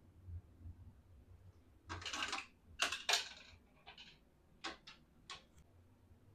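Toy kitchen pieces being handled in an unboxing: a short rustle about two seconds in, then a run of sharp clicks and taps, the loudest just after three seconds, with a few fainter ones after.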